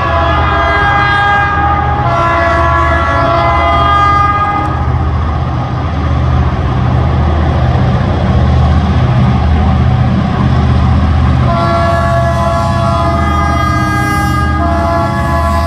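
Two TasRail diesel-electric locomotives working hard at the head of a coal train, their engines throbbing steadily. Over this the lead locomotive's horn sounds several notes at once in four long blasts: two in the first few seconds, then two more from about twelve seconds in, the last still sounding at the end.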